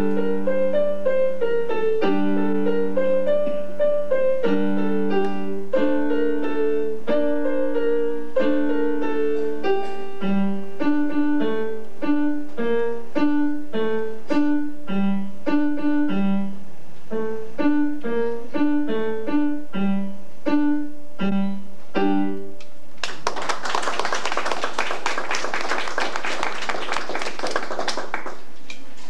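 Electronic keyboard played with a piano sound: a simple piece of single notes and chords at a moderate pace. The piece ends about 23 seconds in, and a small audience applauds for about five seconds.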